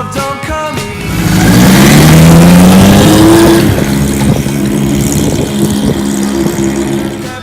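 Motorcycle engine accelerating hard, its pitch climbing over about two seconds and then holding a steady note.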